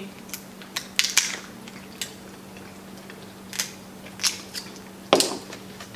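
Crab leg shells cracking and snapping as they are picked apart and eaten: scattered short sharp cracks, the loudest about five seconds in.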